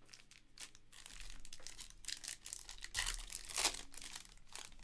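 Foil wrapper of a trading card pack being torn open and crinkled by hand, a run of irregular rustles and rips that are loudest a few seconds in.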